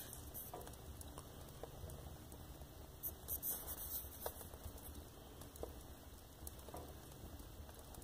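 Fire burning a disposable diaper: faint, irregular crackling and ticking, with a quick run of louder pops about three to four seconds in.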